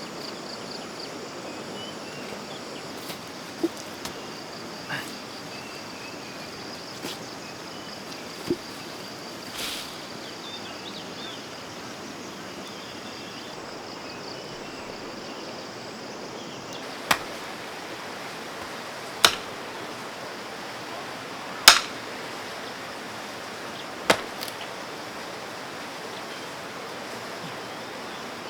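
Digging in soil: a digging tool chopping into the ground, a few scattered strikes at first, then sharp strikes about every two and a half seconds in the second half, over a steady outdoor hiss.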